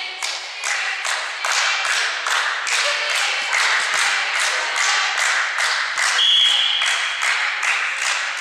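Rhythmic hand-clapping, about three claps a second, echoing in a sports hall, kept up by the crowd or team between volleyball rallies. A short high whistle blast sounds about six seconds in, the referee's whistle.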